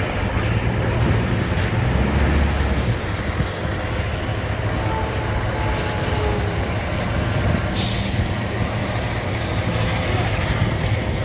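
Fire trucks' engines running with a steady low rumble under a broad rushing noise, with a brief louder hiss about eight seconds in.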